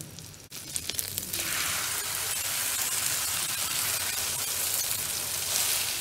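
Egg omelette frying in oil on a flat tawa. A few spatula clicks about a second in as it is flipped, then loud steady sizzling.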